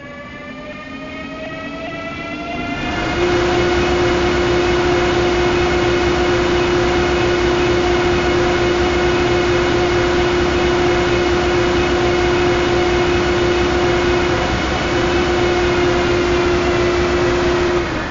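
Electric-locomotive running sound from the Märklin model's mfx+ sound decoder, imitating a BR 185: a whine that rises in pitch over the first three seconds as the locomotive pulls away, then a steady high tone and several fainter steady tones over a rolling, rushing noise at running speed. The sound dips away at the very end.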